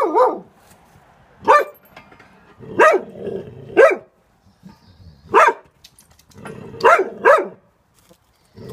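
A spaniel barking in loud, sharp single and double barks about a second apart, with a low growly rumble between some of them: alarm barking at the fence, the dog frightened by the neighbours gardening next door.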